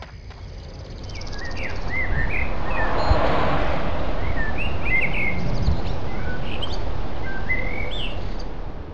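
Outdoor nature ambience: several birds chirping in short calls over a steady background hiss, fading in over the first couple of seconds and fading out near the end.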